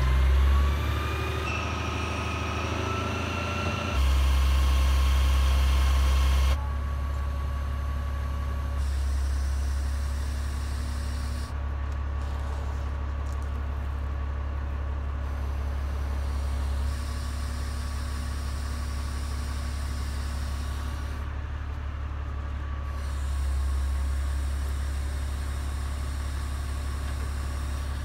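Utility boom truck's diesel engine running steadily with a low hum. In the first few seconds a whine rises in pitch as the crane's hydraulics work.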